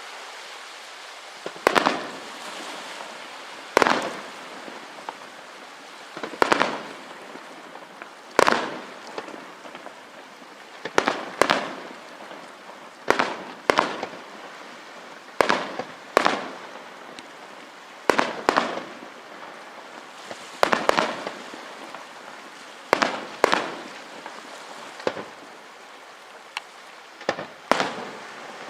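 Display fireworks bursting in a steady run of sharp bangs, about one every second or two, each dying away in a short echo, over a continuous hiss.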